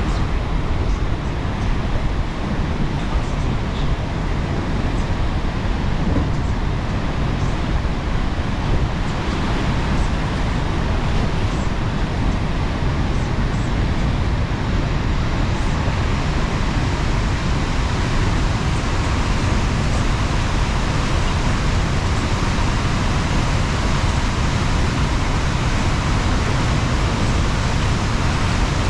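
The Rhine Falls, a wide waterfall, with its water pouring over the rocks in a steady, loud rushing noise that holds constant throughout.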